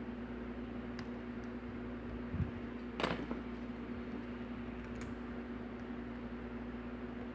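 Lock pick working the pins of a pin-tumbler lock under tension: a few faint clicks, the strongest about three seconds in, over a steady low hum.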